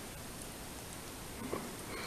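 Steady hiss of rain falling, with a small soft knock about a second and a half in.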